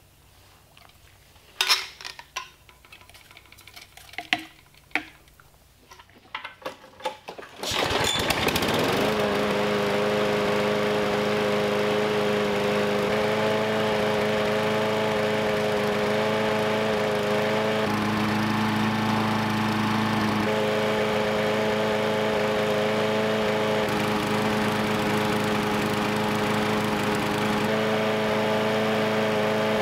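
Small single-cylinder lawnmower engine on a Craftsman push mower: a few handling clicks and knocks, then about eight seconds in the engine starts with a quick rise in speed and runs steadily. It is running on gasoline dosed with undissolved table sugar.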